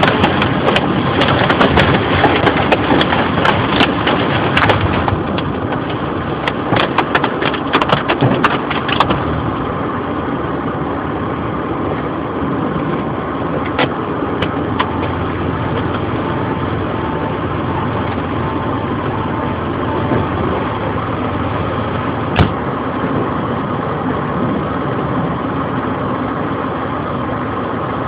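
Hailstones clattering in dense sharp strikes over the hiss of a heavy downpour for about the first nine seconds. Then the hail thins out and the steady rain goes on with only an occasional strike.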